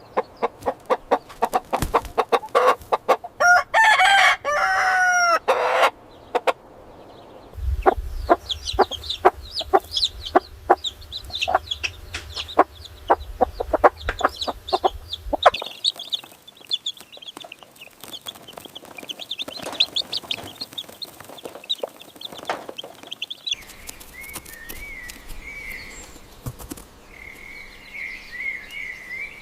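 Chickens clucking and a rooster crowing, followed by several stretches of small birds chirping and calling.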